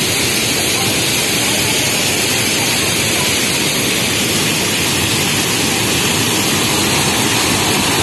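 Large waterfall pouring over rock into a pool: a loud, steady rush of water that does not change.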